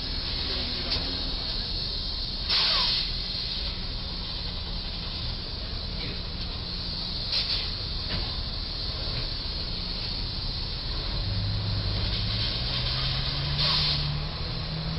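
Steady street traffic noise with three short hisses a few seconds apart. Near the end, a vehicle's engine rises steadily in pitch as it pulls away.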